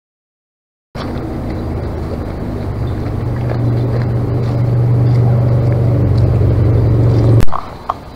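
A steady motor drone with a strong low hum, growing louder over several seconds and cutting off abruptly near the end, leaving quieter outdoor noise with a few light ticks.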